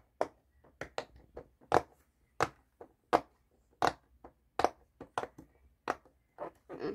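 Bubbles of a round silicone pop-it fidget toy being pressed through one by one under fingertips, giving a string of sharp pops at about two a second.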